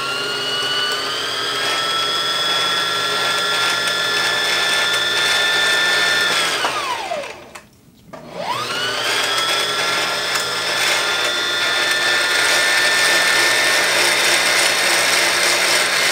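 Singer Heavy Duty sewing machine's electric motor running at speed while winding a bobbin: a steady whine that winds down and stops about seven seconds in, then spins back up a second later and runs steadily again.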